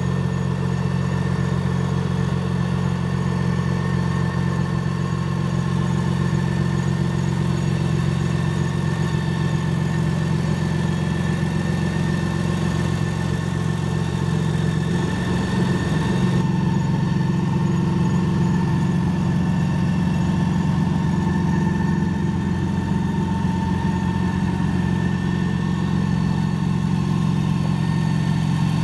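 Campagna T-Rex three-wheeler's engine idling steadily. The sound changes slightly about halfway through, with less hiss on top.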